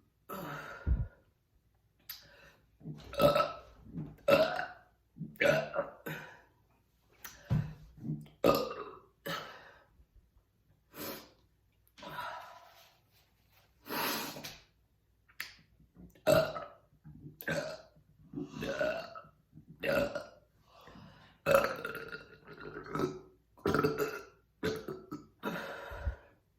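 A woman burping over and over, a long run of short, deep burps about one a second, brought up by the gas from carbonated ginger ale.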